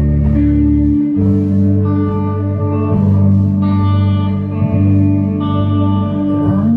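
Electric guitars and a bass guitar play slow, sustained chords together. The chord and bass note change every second or two.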